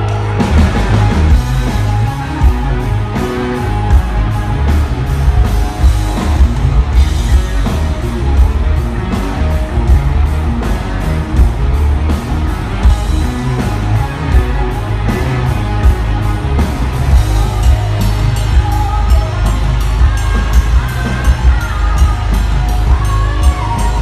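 Live rock band playing loud through a stage PA: electric guitar, bass and a heavy, steady drum beat, with a woman singing into a microphone, the voice coming through more clearly in the second half.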